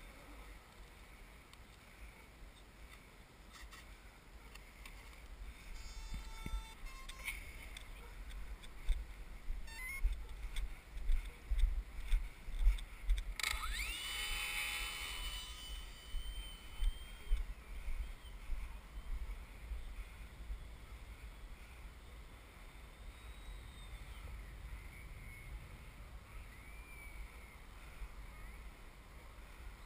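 Wind buffeting a helmet-mounted camera's microphone in gusts. About halfway through, an electric RC model airplane's motor spins up to a high whine that holds steady for a few seconds and then fades.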